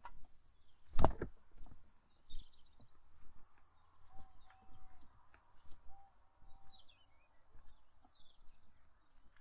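Footsteps crunching along a walking path while small birds chirp in short high calls, with one louder knock about a second in.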